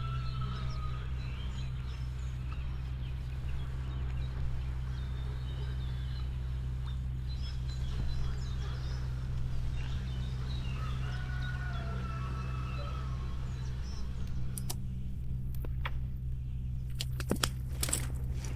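Small birds chirping and singing over a steady low hum. Several sharp clicks come in the last few seconds.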